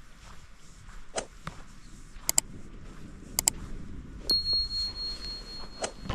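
A few sharp metallic clinks, some in quick pairs, then a steady high-pitched ringing tone held for nearly two seconds, over the crunch of footsteps in snow.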